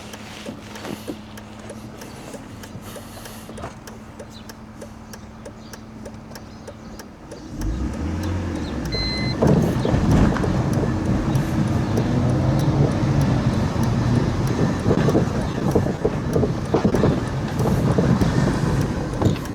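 BMW E46 idling with a steady low hum. About seven seconds in it gets much louder as the car pulls away and drives, with engine and road noise. A short beep sounds around nine seconds in.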